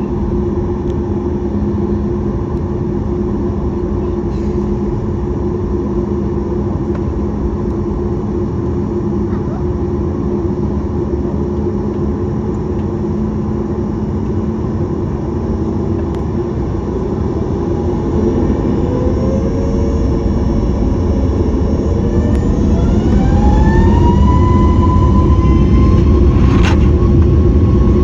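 Boeing 737 MAX 8's CFM LEAP-1B jet engines heard from inside the cabin, first a steady hum at low power, then spooling up to takeoff thrust: whining tones rise in pitch over several seconds and the noise grows louder and holds. A sharp click sounds near the end.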